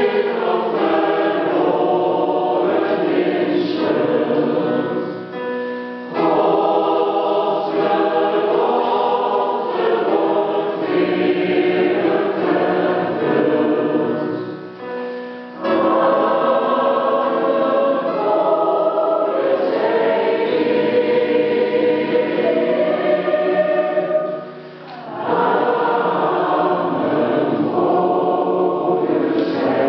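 Mixed choir of women's and men's voices singing in sustained chords, in phrases broken by short breaks about every ten seconds.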